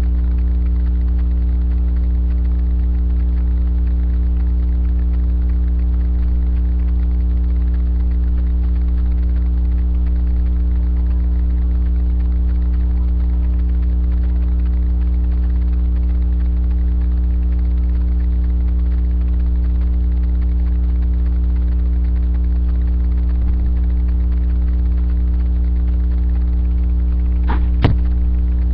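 Loud, steady electrical mains hum with many overtones. A single sharp knock comes near the end.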